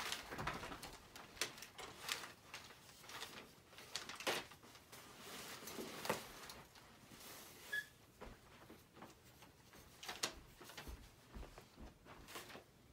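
Scattered light clicks and rustles of handling: a tripod light stand being unfolded and its legs and column extended, with wrapping paper and plastic packaging shifting. There is a brief squeak about eight seconds in.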